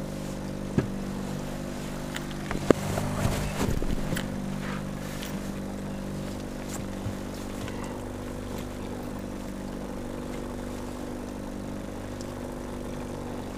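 Boat's outboard motor running steadily at trolling speed, a constant engine hum. A few sharp knocks and a brief stretch of handling noise come about one and three seconds in.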